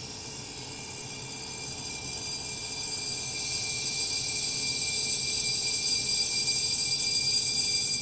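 Red electric gong bell ringing continuously inside a glass bell jar, growing steadily louder as air flows back into the evacuated jar and once more carries the sound out.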